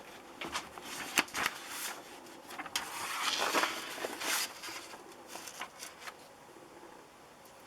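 A paper template rustling and being handled inside a plastic box, with scattered light clicks and taps. The rustling is strongest around the middle.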